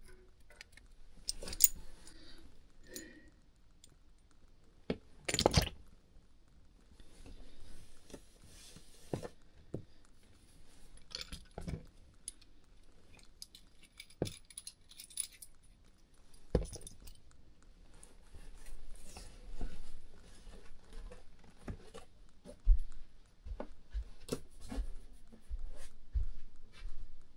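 Irregular metallic clinks, taps and scraping of hand tools working on a radiator valve tail and its fittings, with a sharp knock about five seconds in.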